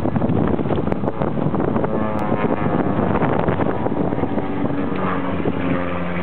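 Wind buffeting the microphone over a steady engine drone; from about two seconds in, a humming engine tone with several pitches stands out above the rumble.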